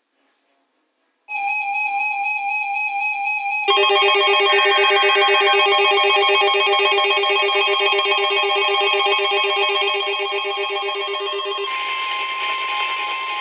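Loud, steady electronic tones sounding together like a chord. They start abruptly about a second in, grow fuller about four seconds in, and shift near the end to a single steady high tone over a hiss.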